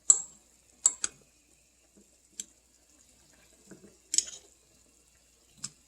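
Scattered light clinks and taps of a utensil against a dish, about six in all, with small wet sounds, as boiled microwaved chicken is pulled apart.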